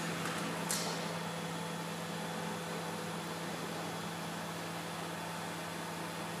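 Steady hum and hiss of an automatic L-welding machine running through the alignment (Angleichen) phase of its heated-tool welding cycle, with one light click under a second in.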